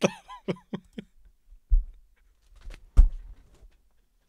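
A man laughing hard in short, quick bursts for about a second. Then two heavy thumps come a little over a second apart, the second one the loudest sound.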